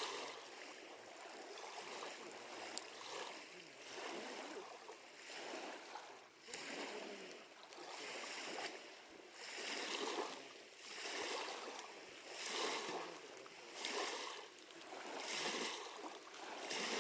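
Small lake waves lapping against the shore, the wash swelling and fading about every second and a half, with one sharp snap about three seconds in.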